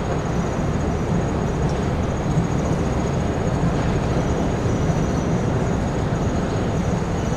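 Steady low rumbling background noise with no distinct events, with a faint steady high whine above it.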